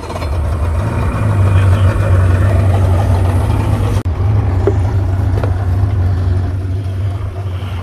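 Yamaha 115 outboard motor idling with a steady low hum.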